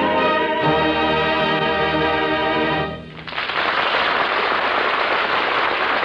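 An orchestra holds the final chord of a song, which fades out about three seconds in. A studio audience then breaks into steady applause.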